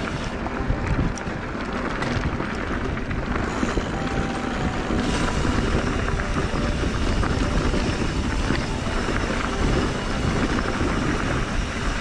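Wind rushing and buffeting over the microphone of a mountain bike riding down a dirt trail, a steady loud rumble with small clicks and rattles from the bike mixed in.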